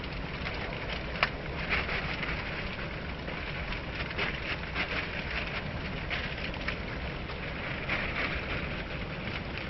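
River water rushing steadily, a continuous noise with a fine crackle, and one sharp click about a second in.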